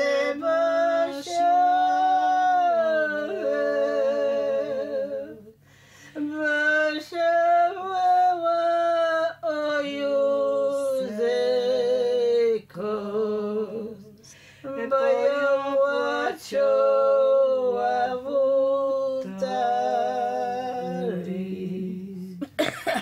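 An elderly woman singing a slow song unaccompanied, holding long notes with a wide vibrato and pausing for breath about five and fourteen seconds in.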